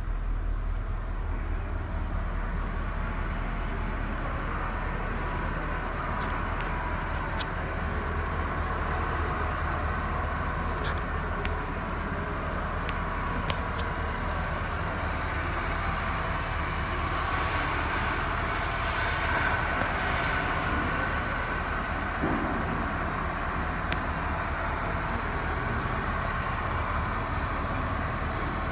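2002 Chevrolet Silverado K3500's V8 engine idling steadily.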